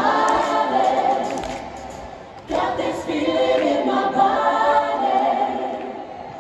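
Several voices singing a pop song together, in two long phrases: the first fades out about two seconds in, the second starts about half a second later and tapers off near the end.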